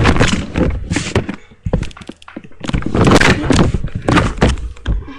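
Thumps, knocks and rustling from the webcam and its microphone being grabbed and knocked about. There is a quieter gap about two seconds in, then another loud flurry of bumps.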